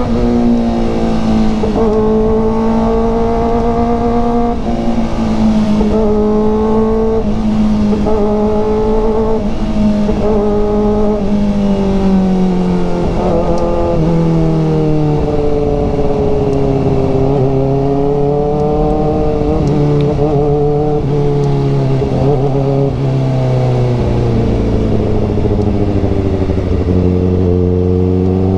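Kawasaki ZX-4RR's 399 cc inline-four engine running under way, heard from on the bike. The revs hold fairly steady, drop in a few sudden steps around the middle as gears change, sink slowly, then rise again near the end.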